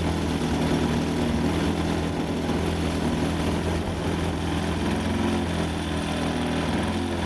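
Large radio-controlled model aerobatic plane's engine idling steadily, its propeller turning, the pitch wavering slightly.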